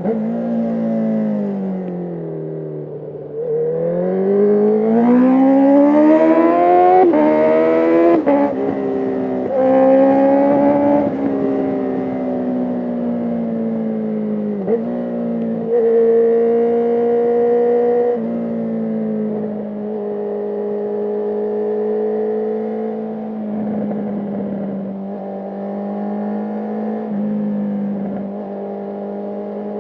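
Sport motorcycle engine heard from onboard: it drops off in revs, then pulls hard with rising revs through quick gear changes, and settles to a steady cruise with a few small shifts.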